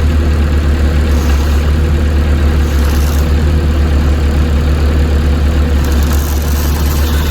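Volvo ECR88 compact excavator's diesel engine running steadily at a low, even speed.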